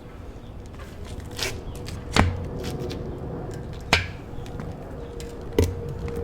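Three sharp clicks or knocks, about a second and a half to two seconds apart, from handling the foam cannon bottle and soap container, over a faint steady hum.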